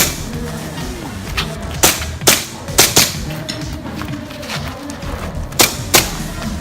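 Pistol shots, about seven sharp cracks in loose pairs with short pauses between.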